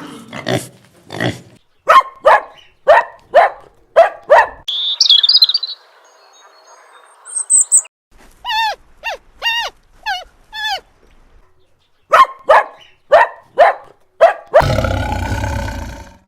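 A string of different animal calls, one after another: a fast run of short repeated calls, a brief high chirping, a series of short pitched yelping calls, and a long, harsh call near the end.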